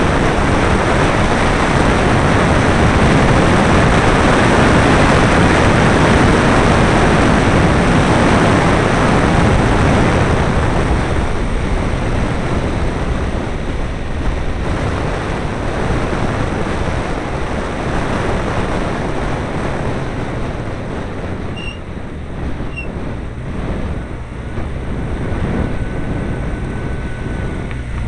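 Wind and engine noise on board an open Caterham 7 driven on track: a steady rush of wind over the mounted camera's microphone with the engine underneath. The noise eases from about ten seconds in as the car slows.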